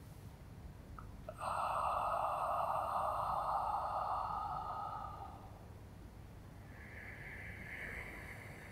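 A woman breathing deeply and audibly while holding a stretch: one long, loud breath lasting about four seconds, then a shorter, softer breath about two seconds later.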